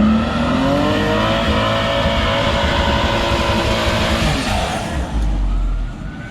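A 500 hp Nissan Z's engine pulling hard under acceleration, its note climbing steadily for about four seconds, then dropping away as the throttle is lifted.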